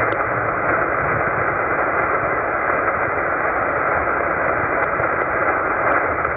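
Tecsun PL-990x shortwave receiver's speaker giving a steady, dull hiss of band noise in upper-sideband mode while it is tuned across the 20 m amateur band, with no station coming through. A few faint ticks sound over it.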